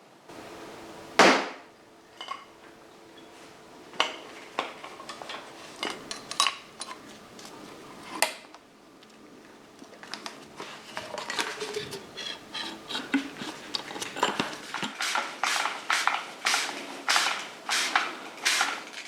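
Metal tools and parts clinking and knocking on a workbench. There is one loud knock about a second in, then scattered clicks, and from about halfway a busier run of clatters, roughly two a second near the end.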